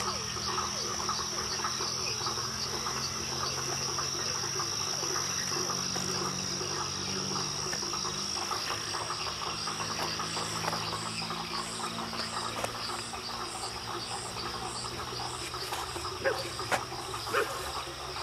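Night-time jungle chorus of frogs and insects. A steady high insect trill sits over dense, overlapping frog calling, and a regular high chirp repeats for several seconds midway. A few short, sharp sounds come near the end.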